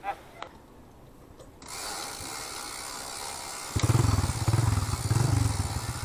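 A motorcycle engine running. It starts suddenly about two-thirds of the way in, loud and low, with a pitch that wavers up and down. Before it there is a steady hiss like wind on the microphone.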